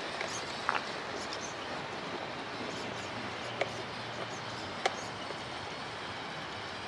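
Radio-controlled tow truck driving through snow while towing another RC truck: its electric drivetrain is heard faintly over a steady hiss, with a few sharp clicks.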